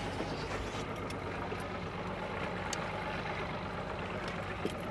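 A boat's outboard motor idling steadily, with a few light clicks.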